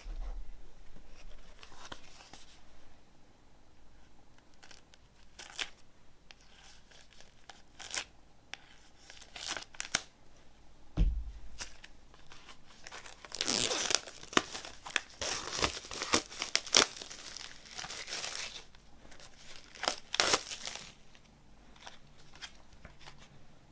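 Clear plastic shrink-wrap being torn and peeled off a CD digipak, crinkling in irregular bursts, loudest from about 13 to 15 seconds in and again about 20 seconds in. One soft thump comes about 11 seconds in.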